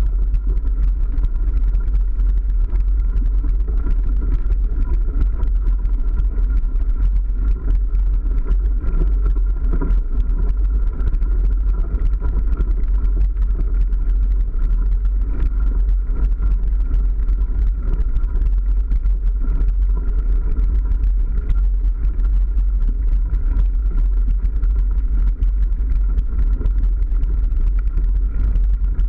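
Mountain bike rolling along a gravel forest track, heard through a ride-along camera: a steady, loud low rumble of tyre noise, vibration and wind on the microphone.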